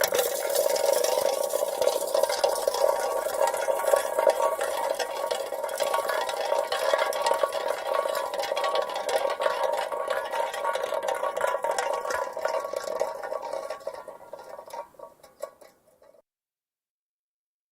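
Empty soda can rolling over asphalt: a steady gritty rattle with a ringing metallic tone, fading away over the last few seconds as the can rolls off.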